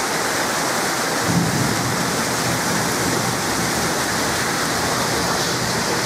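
Heavy rain pouring steadily, with a brief low rumble of thunder just over a second in.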